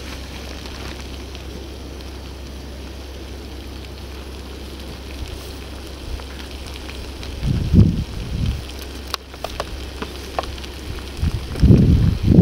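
Small gas-cartridge camping stove burning steadily under a frying pan of curry that is sizzling. A few louder low rumbles come about halfway through and again near the end.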